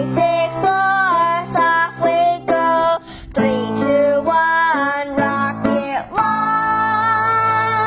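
Intro theme music: a sung melody over guitar, ending on a long held note.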